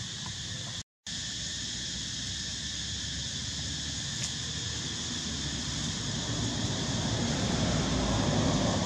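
Steady outdoor ambience: a high, even insect drone with a low rumble underneath that swells toward the end. The sound cuts out briefly about a second in.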